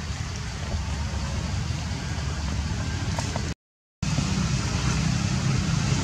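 Steady low outdoor rumble with a hiss over it, which cuts out completely for about half a second near the middle and then resumes a little louder.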